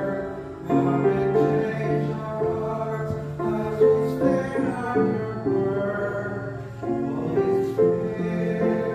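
Grand piano and an electric stage piano playing a slow worship song, with a small choir singing along.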